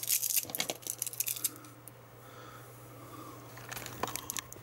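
Clicks, crackles and rustles of a cable and plug being handled and pushed into place, in a flurry at the start and again near the end, over a faint low steady hum.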